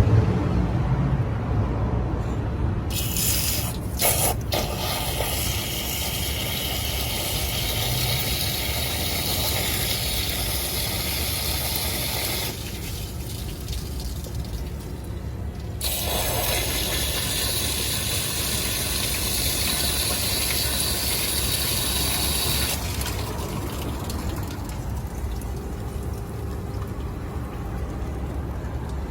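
Water from a hose flushing out an engine block through the opening where the water pump was removed, hissing and splashing. The spray comes and goes several times. The flush is to clear rust and foaming coolant, blamed for overheating.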